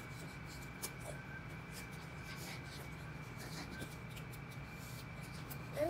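Quiet room tone: a steady low hum and a thin steady high tone, with scattered faint clicks and small mouth sounds from eating at the table. A short voice sound starts right at the end.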